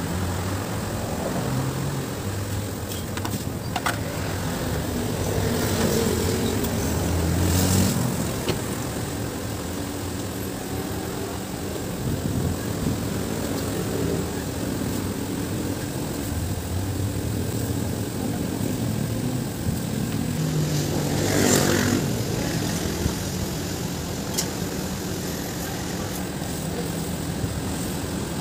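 Road traffic: vehicle engines running steadily, with one vehicle passing close about seven seconds in and another about twenty-one seconds in. A few faint clicks.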